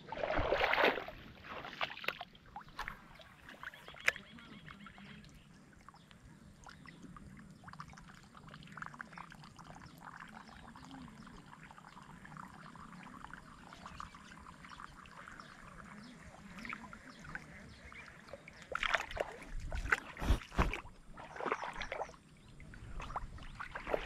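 Water sloshing and splashing, with a louder burst at the start and several more near the end, over a faint steady background.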